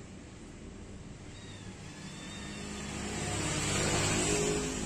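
A motor vehicle's engine passing by, growing louder to a peak about four seconds in and then beginning to fade.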